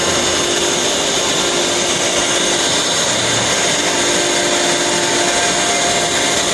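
CNC router running steadily: an even machine noise with a held high whine and a lower steady tone.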